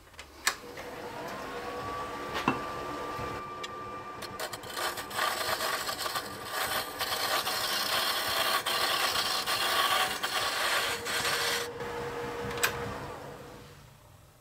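Wood lathe spinning up with a rising motor whine, then a hand turning tool shaving a spinning maple hub blank on a pen mandrel, a steady rasping hiss of light cuts. The lathe fades away near the end.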